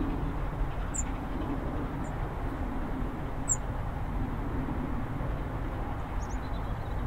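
Terrier 0-6-0 tank locomotive working at a distance: a steady low rumble without distinct exhaust beats. A few short bird chirps sound over it.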